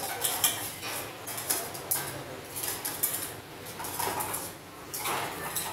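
Dishes and metal utensils clinking and clattering in a kitchen: a string of irregular short, sharp knocks and clinks.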